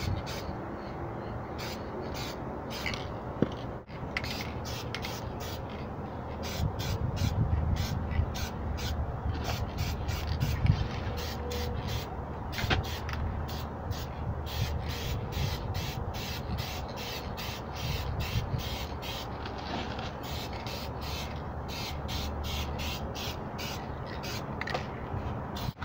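Birds calling over and over, short calls coming singly and in quick runs, over a low rumble.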